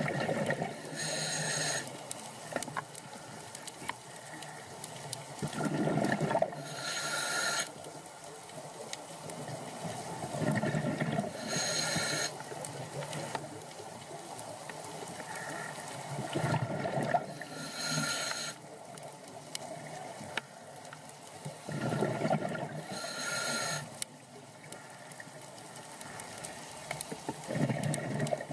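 Scuba diver breathing through a regulator underwater: each breath is a gurgling rush of exhaled bubbles followed by a hissing inhale, repeating about every five and a half seconds, five breaths in all.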